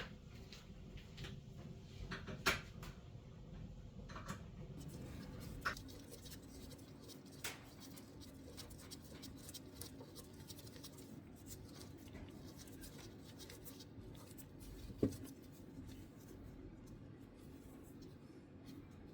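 Hand tools working on a connecting rod as its bolts are brought to an 18 ft-lb initial torque: soft scattered clicks and scraping, with two sharper clicks about two and a half seconds in and near fifteen seconds.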